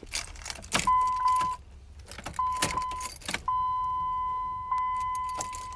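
Keys jangling and clicking, with a steady electronic warning tone from the pickup's dash that sounds twice briefly, then holds on from about halfway through.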